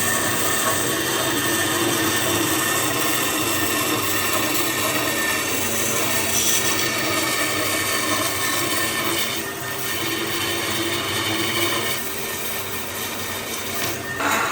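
A power tool working on wood, a steady rough noise that starts abruptly and dips slightly a few times toward the end.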